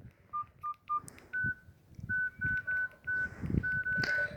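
Alcatel OT-2012D keypad tones: short single-pitch beeps as buttons are pressed. Three lower beeps come first, then a run of higher beeps at uneven intervals, with faint thumps from handling the phone.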